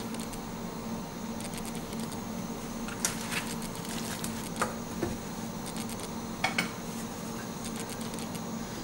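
Crab roast frying in a stainless steel pan, with a steady faint crackle, as a wooden spatula stirs and scrapes through it. A few sharp knocks of the utensil against the pan come about three, four and a half, and six and a half seconds in, over a steady low hum.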